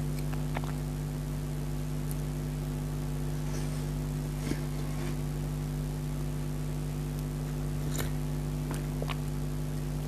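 A steady low hum with a faint hiss, with a few faint clicks scattered through it.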